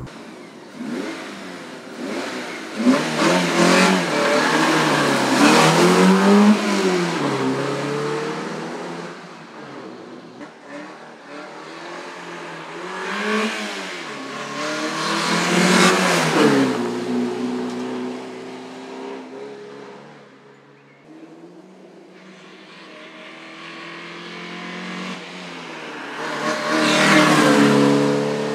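Porsche 944 S2 race car's 3.0-litre four-cylinder engine revving hard, its pitch climbing and dropping with the gear changes. It swells loud as the car passes, three times over, and fades away between passes.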